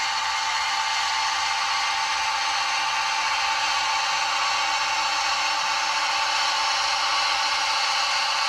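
A sound-fitted model Class 55 Deltic locomotive playing its diesel engine sound through its small onboard speaker. The engine note runs steadily and thinly, with no deep bass.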